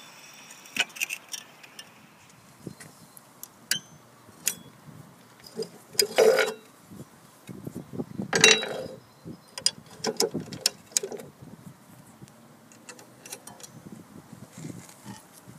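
Metal clinks and rattles as the steel depth-stop bar of an electric tiller is handled, slid into its rear bracket and pinned with a hairpin clip, with two louder metal rattles about six and eight and a half seconds in.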